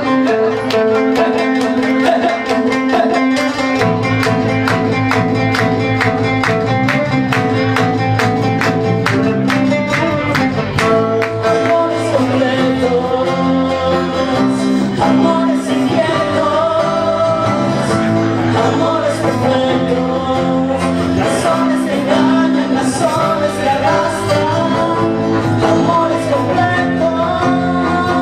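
Live acoustic band music: acoustic guitars strummed in a quick, even rhythm over a low bass line, with a man singing. The strumming dominates for roughly the first ten seconds, then the voice comes forward.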